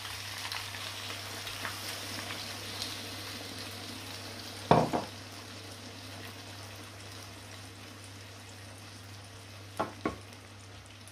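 Food sizzling steadily in a hot cooking pan. There is one loud knock about halfway through and two lighter knocks near the end.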